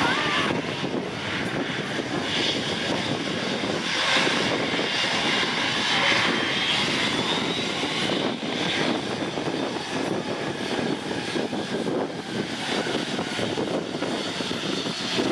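Airbus A320-200 jet engines running at taxi power as the airliner turns on the runway: a steady rushing engine noise with a faint high whine.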